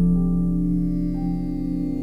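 Slow background music played on a keyboard, with long held notes and a new note coming in about a second in.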